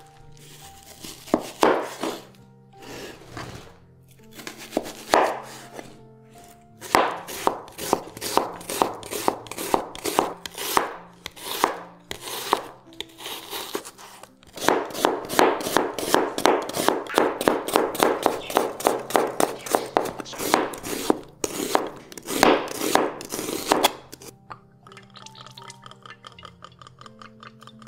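Kitchen knife slicing onions on a cutting board, in quick runs of sharp strokes about four a second, over background music. Near the end the slicing stops and the music carries on more quietly.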